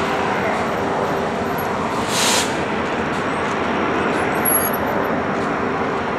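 Steady motor-vehicle noise: an even rumble with a faint steady hum, and a brief whoosh about two seconds in.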